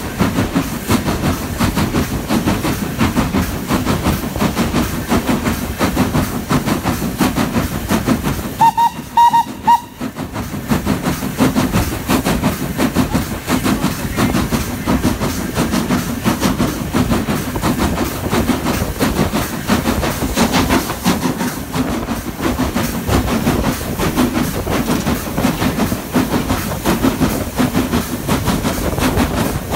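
S15 class 4-6-0 steam locomotive No. 825 working along at speed, heard from the footplate: steady running noise with steam hiss and the clickety-clack of wheels on rail joints. About nine seconds in, its whistle sounds in three short toots.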